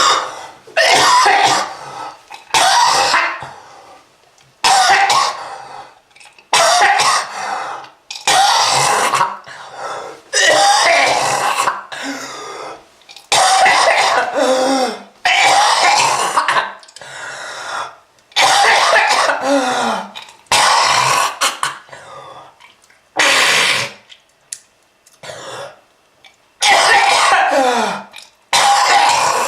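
A person coughing over and over in harsh, hacking fits with throat clearing, a burst every second or two, some trailing off in a falling voice. It is presented as a smoker's cough.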